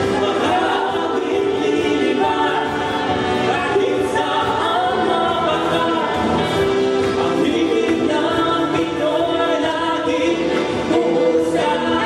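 A vocal group singing a song live, several voices together in harmony.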